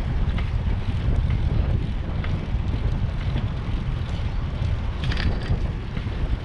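Wind buffeting the microphone of a camera on a moving bicycle: a steady low rumble, with a few light clicks and rattles about five seconds in.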